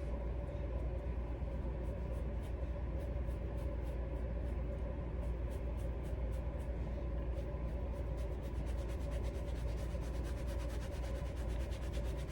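Liquid foundation being dabbed and rubbed onto a wig cap: soft rubbing with many faint ticks, over a steady low hum.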